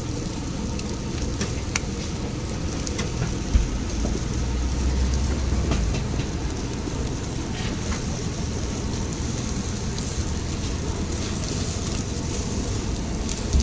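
Chicken skewers sizzling over a direct-flame grill: a steady hiss with a few sharp crackles, and a low rumble for a couple of seconds about four seconds in.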